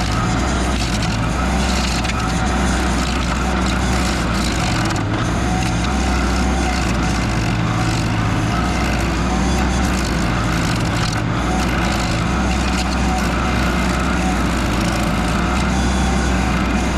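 Mini skid steer engine running hard while its stump grinder attachment works, the engine tone shifting every few seconds as the load changes.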